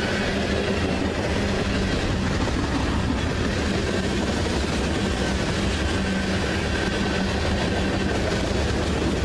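Freight train cars rolling past close by: a steady rumble and rattle of steel wheels on rail as covered hoppers, tank cars and lumber-loaded centerbeam flatcars go by.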